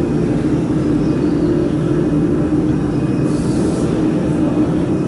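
Steady machinery hum: a constant drone with a few steady low tones, without a break.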